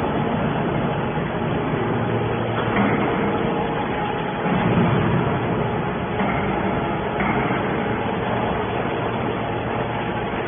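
Hydraulic scrap metal baler running: a steady machine drone with a low hum and a few brief louder swells.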